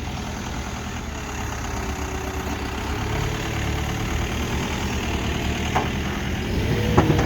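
Diesel engines of heavy equipment running steadily, growing a little louder about three seconds in as the machines work to move a crawler.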